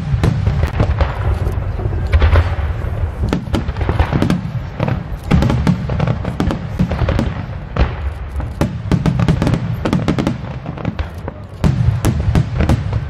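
Aerial fireworks shells bursting in quick succession: a dense run of sharp bangs and crackles over a continuous low rumble of booms and their echoes.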